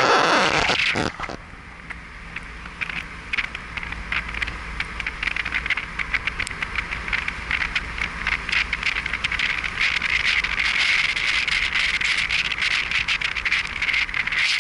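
Car driving along a narrow wet lane: a steady low engine hum under a dense crackling hiss of tyres on the wet road. A loud rushing burst fills the first second or so.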